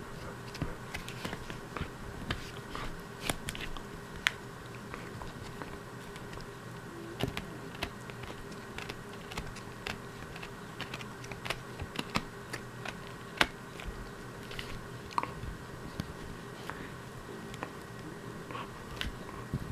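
Siberian husky puppy gnawing a chew bone: irregular sharp clicks and crunches of teeth on the bone, over a steady low hum.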